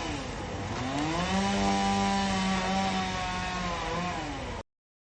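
A small engine running at high revs, its pitch dipping and picking up again twice, then cutting off abruptly.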